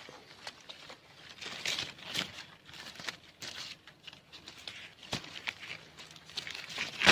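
Persimmon tree leaves and twigs rustling and crackling as a fruit is reached for and picked, with a sharp snap at the very end.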